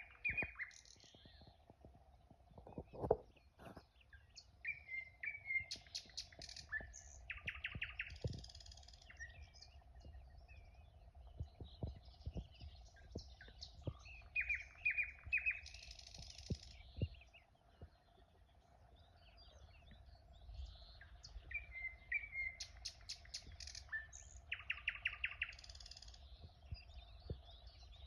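Songbirds singing: repeated chirps and quick trilled phrases, the same song pattern coming round again and again. Under them runs a faint steady hum, with a few low thumps, the loudest about three seconds in.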